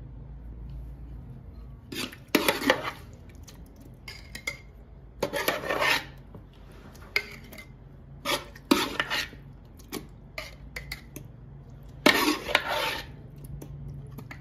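Glass jar scraping and knocking against the inside of a large aluminium pot as pickled mango pieces are scooped into it by hand, in several short bursts a few seconds apart.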